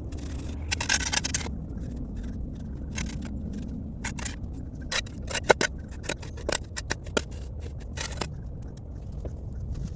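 Shovel blade scraping and cutting into soil: one longer scrape about a second in, then a run of short sharp scrapes and clinks, and another scrape near the end, over a steady low rumble.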